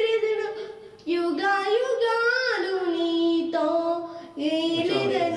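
A young girl singing a Telugu Christian song into a microphone, in held, bending phrases, with short breaks for breath about a second in and again a little after four seconds.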